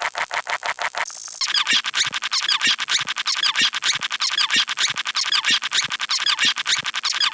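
Sound effect of rapid, high-pitched squeaky chirps repeating evenly, several a second, with a brief change about a second in.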